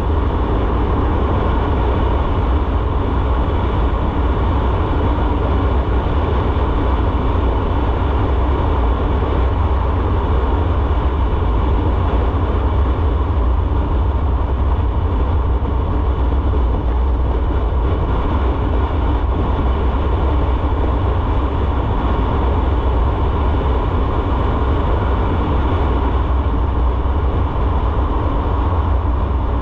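Motorcycle riding at a steady speed: constant wind rush and engine and road noise, with a heavy low rumble of wind buffeting the microphone.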